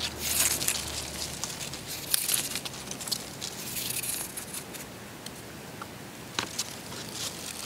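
Deer rawhide crackling and rustling in short bursts as a long strip is cut from a round piece and pulled free.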